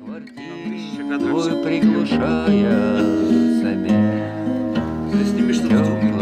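Acoustic guitar playing chords, strummed, starting softly and growing louder over the first couple of seconds.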